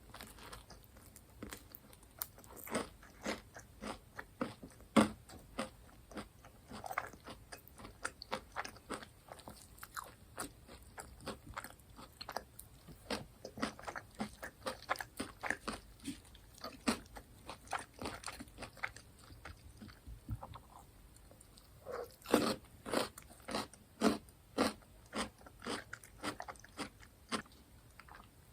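Close-miked biting and chewing of crunchy fried food: a run of irregular sharp crunches, with a short lull and then a cluster of louder crunches about two-thirds of the way through.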